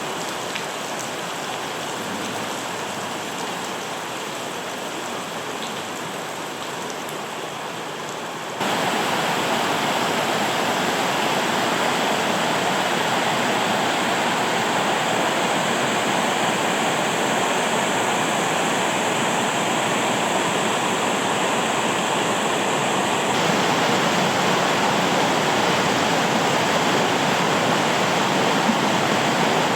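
Rushing water of a mountain stream, a steady rush that jumps abruptly louder about a third of the way in.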